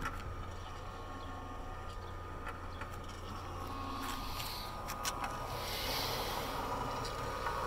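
Patterson-Kelley V-blender running: its electric motor hums steadily as the roller-chain drive turns the stainless-steel V-shell, with a few light clicks along the way.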